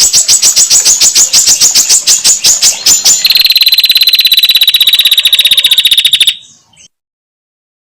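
Prinia (prenjak) calls: a loud, rapid ticking series of about ten notes a second, changing about three seconds in to a faster, steadier buzzing trill, which breaks off after about six seconds and leaves silence. This fast chattering trill is the female's call, used as a lure to make birds sing.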